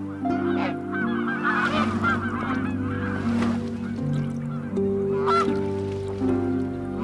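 A flock of geese honking, many overlapping calls for the first few seconds and then only a few scattered ones, over held notes of background music.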